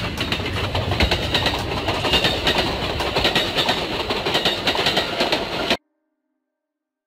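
Amtrak passenger coaches rolling past: a steady rush of steel wheels on rail with rapid clicking over the rail joints. It cuts off abruptly about six seconds in.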